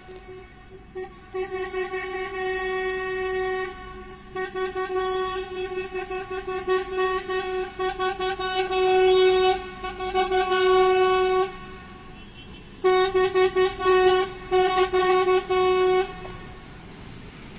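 Truck air horn honking loudly in long sustained blasts, then a string of short rapid toots, cutting off a little before the end.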